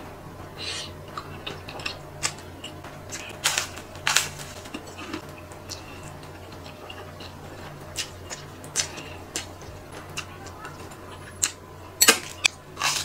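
Close-up eating sounds: a person chewing and slurping creamy fettuccine, with irregular wet mouth clicks and smacks, a few of them louder a few seconds in and near the end.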